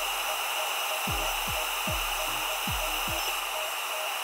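xTool D1 Pro diode laser engraver running while it cuts basswood: a steady noise with a constant high tone. Background music with a regular low beat plays underneath.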